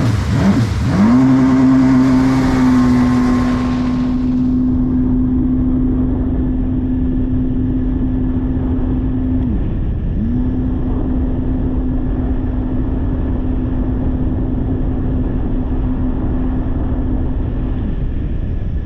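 Yamaha WaveRunner jet ski engine pulling away and then running at a steady high speed. The throttle is let off briefly about ten seconds in and again near the end. A rushing noise accompanies it for the first few seconds.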